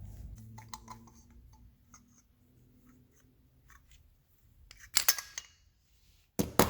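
Light scattered clicks of metal handling, then two loud, sharp clattering knocks, about five and six and a half seconds in.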